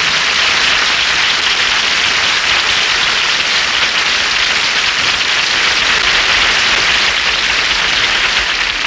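Studio audience applauding steadily, a dense sustained clapping, on an old radio broadcast recording.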